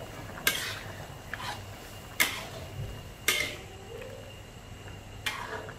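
Metal spatula stirring pork ribs in broth in an aluminium wok, clacking and scraping against the pan several times at uneven intervals.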